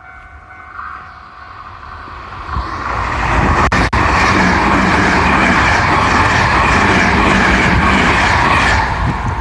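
Train passing at close range: its rushing noise swells over the first three seconds, stays loud and steady for about six seconds, then drops away near the end.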